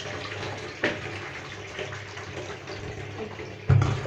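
Steady rushing hiss over a low hum in a kitchen, with a light knock about a second in and a heavier bump near the end.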